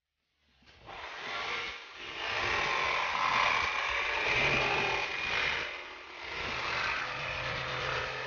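Jigsaw cutting through an old camper-van interior wall panel, the motor running under load. It starts about half a second in and dips briefly twice.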